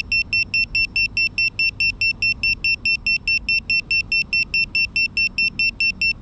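A crashed FPV quadcopter's piezo buzzer beeping: rapid, even, high-pitched beeps about five a second. It is the lost-model alarm that helps the pilot find the downed drone.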